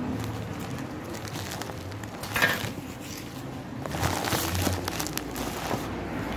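Crinkling and rustling of packaging being handled, with scattered small clicks and a sharper knock about two and a half seconds in.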